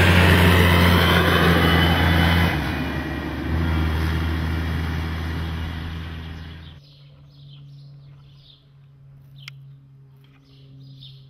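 Engine of a farm vehicle running steadily with a low drone, fading away about seven seconds in. A faint steady hum and a few short high chirps remain after it.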